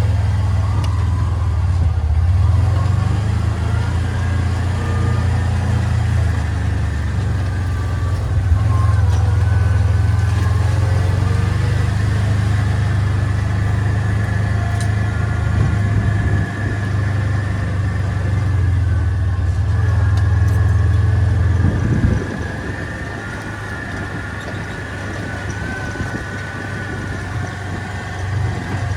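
A vehicle engine running with a steady low hum. It drops noticeably quieter about three-quarters of the way through.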